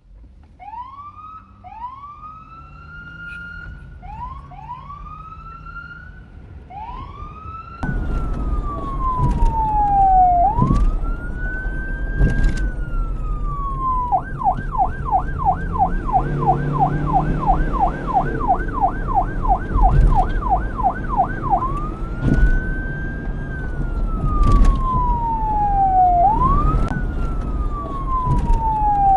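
Police car electronic siren. It gives a run of short rising whoops for about eight seconds, then turns suddenly louder into a slow wail sweeping up and down. Halfway through it switches to a fast yelp of about four warbles a second for several seconds, then back to the slow wail, over a low rumble.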